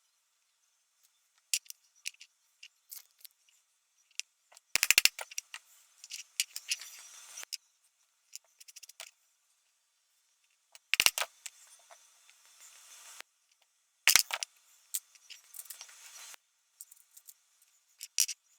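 Scissors cutting scrap leather in several bouts of snipping and scraping, with sharp clicks. The loudest clusters come about five, eleven and fourteen seconds in.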